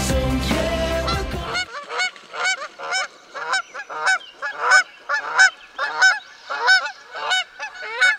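Background music cuts off about a second and a half in, followed by geese honking in a repeated series of short calls, about two a second.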